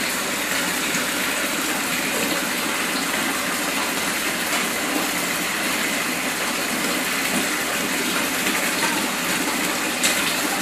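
Steady bubbling from an air line aerating a tub of goldfish fry, air rising through the water in an unbroken stream. A small click about ten seconds in.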